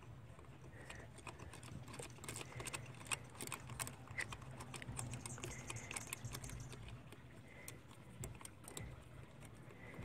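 Faint, irregular small clicks and ticks of a mounting bolt being turned in by fingers on an EVAP purge control solenoid bracket, most of them in the middle of the stretch.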